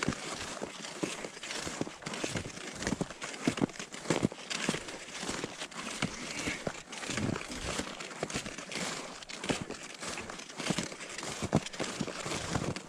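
Skis sliding and crunching over packed snow, with many irregular short crunches and scrapes.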